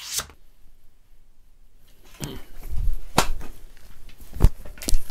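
A brief swish at the very start, then from about two seconds in a handful of short, dull knocks and thumps with faint rustling between them, as of someone handling things at close range in a small room.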